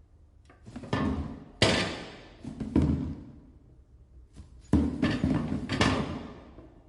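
A series of about five sudden heavy bangs, each dying away in a long echoing tail.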